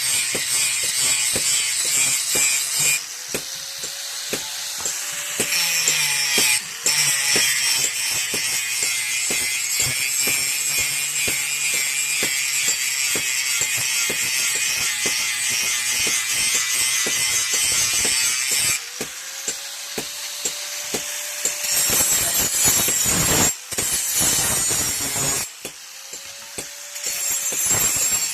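Knife blade being ground on a spinning grinding wheel: a harsh hiss of steel against the stone over rapid mechanical ticking, with a faint whine that rises and falls a few times. The grinding breaks off for a few seconds about two-thirds through, then resumes in short spells.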